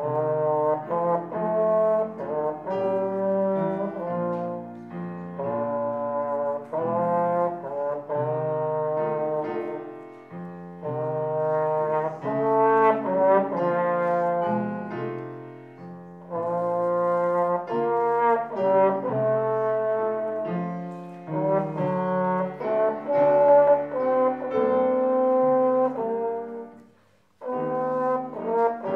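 Slide trombone playing a lyrical solo melody with piano accompaniment, in phrases separated by short breath pauses, with one brief near-silent break near the end.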